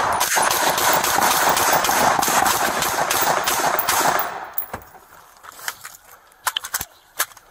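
Gunfire: a rapid volley of many gunshots, echoing and overlapping for about four seconds, then thinning to a few separate sharp cracks.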